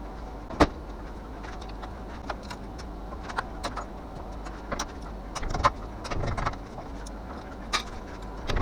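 Small metal clicks and taps of hand tools working a cotter pin out of a ball joint on a Chevy Nova's front suspension, with a sharp click about half a second in and a run of louder taps a little past the middle.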